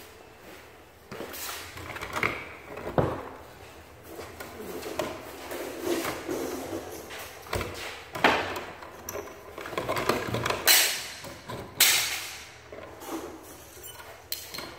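Irregular knocks, scrapes and rustles from handling close to the microphone, loudest about three seconds in and again around eight, ten and twelve seconds in.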